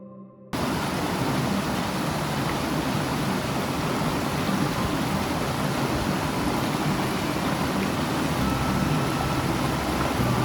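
Mountain stream's water rushing steadily. It cuts in suddenly about half a second in.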